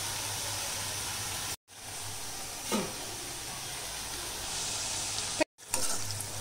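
Ragi biscuit dough pieces deep-frying in hot oil in an iron kadai: a steady sizzle that cuts out abruptly twice for a moment. Near the end a slotted spoon stirs through the oil.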